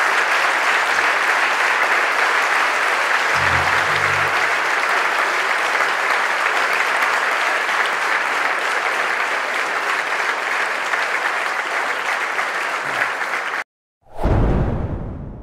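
Large audience applauding steadily; the applause cuts off abruptly near the end, followed after a brief gap by a sudden deep boom that fades away over a couple of seconds.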